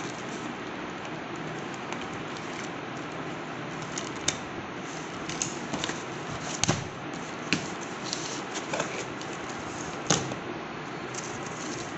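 Packing tape on a cardboard shipping box being cut with scissors and torn, then the cardboard flaps pulled open. Scattered sharp snips, crackles and rustles, loudest about midway and again near the end, over a steady hiss.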